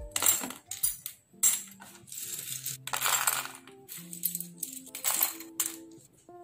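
Small plastic model-kit parts dropped by the handful into a cardboard tray, clattering in several quick bursts over background music.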